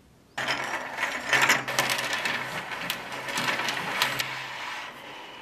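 Rapid mechanical clicking and rattling that starts suddenly, with irregular louder clicks through it.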